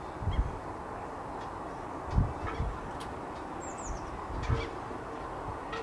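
Outdoor background of steady rushing noise with a few low thuds, the loudest about two seconds in, and a couple of faint high falling bird chirps about four seconds in.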